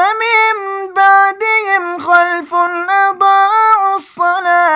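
A male Quran reciter chanting in melodic tajweed style, unaccompanied and without added effects. His voice is held on long steady notes, with short breaks between phrases.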